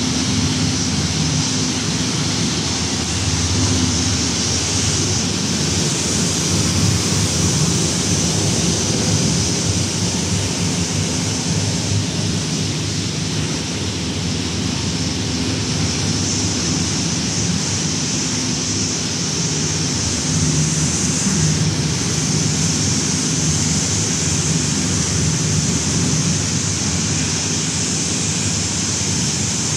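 Running machines of a used-cement-bag washing and recycling line: a loud, steady mechanical noise with a low hum and a high hiss over it.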